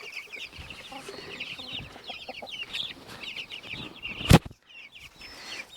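A flock of chickens making many short, rapid calls as they feed. A single sharp knock sounds about four seconds in.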